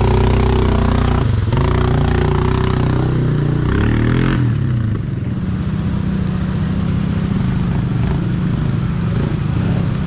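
Off-road vehicle engine running, its pitch shifting up and down in the first few seconds, then holding a steadier note.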